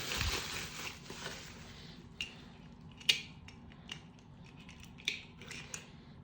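Scattered light clicks and taps of brass door knobs and their parts being handled, a few sharp ticks spaced irregularly about a second apart.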